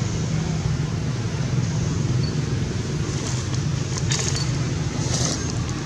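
A steady low rumble, with short crinkles of a clear plastic bag handled by a feeding macaque a little past three seconds in and again around four and five seconds.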